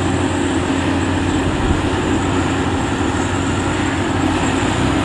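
Rice combine harvester running steadily while cutting through the crop: an even engine drone with a low hum and a faint high whine over it.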